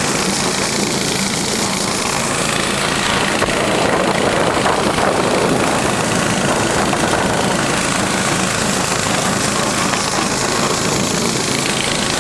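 Small engine of a motorized towing dog, a compact tracked snow tug, running steadily under way, with a dense rattling noise over its hum.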